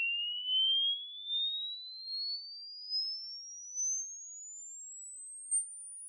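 Hearing-test tone: a single pure electronic tone sweeping steadily upward in pitch, from a high whistle to a very high, thin tone. A short click about five and a half seconds in.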